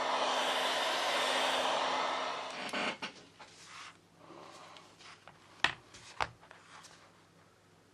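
Hot air gun blowing steadily with a low hum, switched off a little under three seconds in. After that, a few sharp clicks of small tools being handled, the loudest about two-thirds of the way through.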